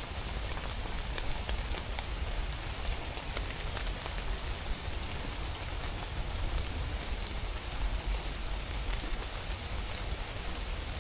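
Steady rain falling, a continuous hiss with many separate drops ticking, over a low rumble.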